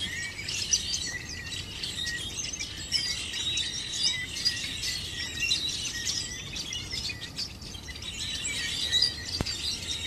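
A large flock of hundreds of songbirds chirping all at once: a dense, unbroken chorus of overlapping high chirps.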